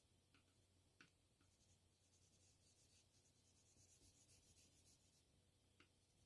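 Faint scratching of a yellow Tombow NQ colored pencil shading on paper in short strokes, with a few light clicks about a second in and near the end.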